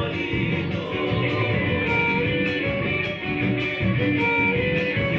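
Live Argentine folk band playing a gato, with strummed guitars keeping a steady, even beat in an instrumental passage without singing.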